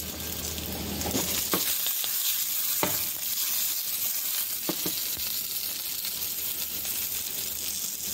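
Whole jalapeño peppers sizzling as they fry in a nonstick skillet, a steady hiss with a few sharp pops. The pan is shaken about halfway through.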